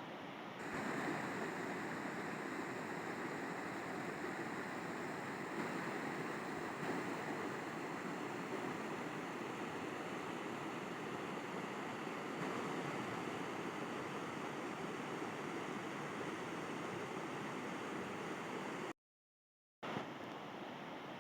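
River water rushing steadily. The sound steps up a little about half a second in, cuts out completely for under a second near the end, then comes back slightly quieter.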